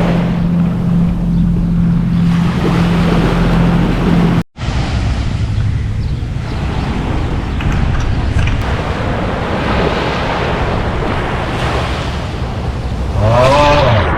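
Sea and wind noise on the microphone, with a steady low drone for the first few seconds that stops abruptly at a brief dropout about four and a half seconds in. Then the surf and wind noise continues alone.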